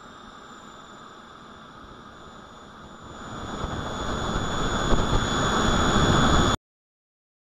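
Twin JetCat P120 model gas turbines running, heard through the model's onboard camera: a steady high whine over a rushing noise that grows much louder from about three seconds in, then cuts off abruptly.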